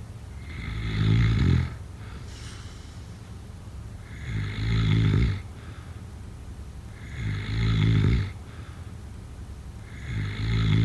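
A sleeping person snoring: four snores about three seconds apart, each lasting about a second, with quieter breathing between.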